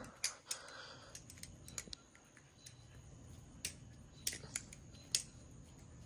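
Balisong (butterfly knife) being flipped: its metal handles and blade clack together in sharp, irregular clicks, scattered a few at a time.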